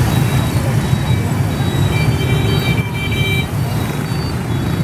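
Dense rush-hour traffic of motorbikes and scooters streaming past, a steady mass of small engines running, with brief thin high tones about two seconds in.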